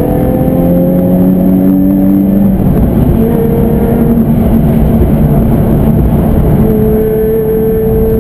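Nissan 350Z's V6 engine and tyre noise heard inside the cabin while driving. The engine note rises a little over the first couple of seconds, then holds steady at cruise.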